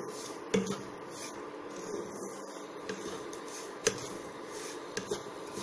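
Spatula stirring and scraping semolina as it roasts in ghee in a nonstick kadai, with a few sharp clicks of the spatula against the pan over a steady hum.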